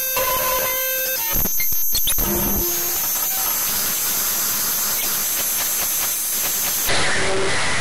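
Synthesized sci-fi noise effect: a dense hiss with a few held electronic tones, broken about a second and a half in by a second or so of rapid stuttering clicks, then settling into a long even hiss. Near the end the sound changes as a different noise comes in.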